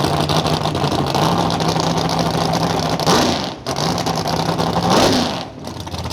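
A car engine idling, blipped up in revs and back down twice.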